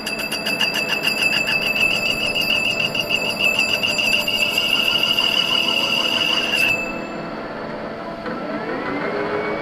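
Metal lathe running, with a high-pitched squeal that pulses rapidly and evenly over the machine's steady hum. The squeal cuts off suddenly after about seven seconds, and a rising whine follows near the end.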